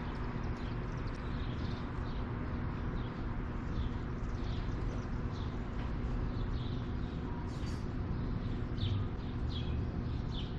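A large flock of small birds, which the filmer takes for barn swallows, giving many short, high, falling chirps as they circle and hunt flies. The chirps come scattered and overlapping, over a steady low hum.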